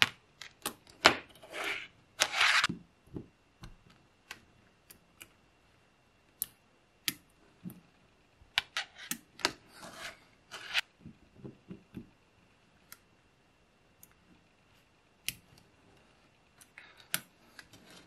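Small neodymium magnet balls clicking sharply as they snap onto one another and onto a block of balls. The clicks come irregularly, with two spells of quicker clicking and rattling, about two seconds in and again about nine to eleven seconds in.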